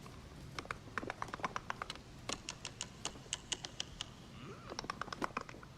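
A run of rapid, irregular clicks like keys being typed, in two spells with a short lull between.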